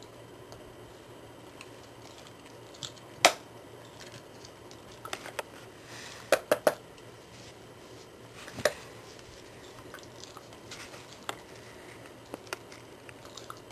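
Scattered sharp clacks of hard plastic as a puppy noses and knocks the yellow plastic cups of a Paw Hide puzzle toy against its plastic base. The loudest clack comes about three seconds in, with a quick run of three around six and a half seconds.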